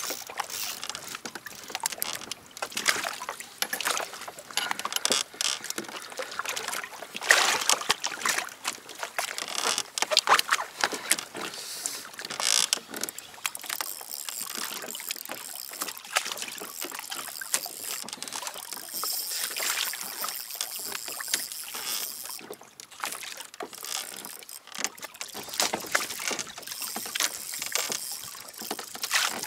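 Kayak on the water, with water slapping against the hull in irregular splashes.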